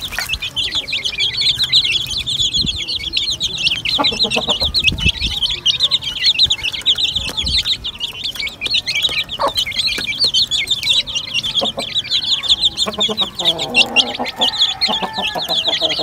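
A flock of young chicks peeping, many rapid high peeps overlapping without a break. A hen's lower clucking joins near the end.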